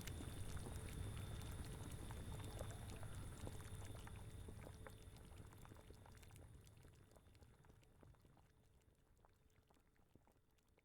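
Bubbling cauldron with lots of small pops over a low rumble of wind, fading out steadily to near silence.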